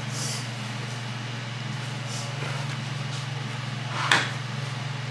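Steady low background hum with a few faint clicks and rustles.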